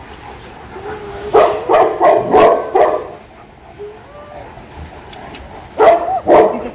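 Dog barking: a quick run of about five loud barks, then two more near the end, with faint whining between them.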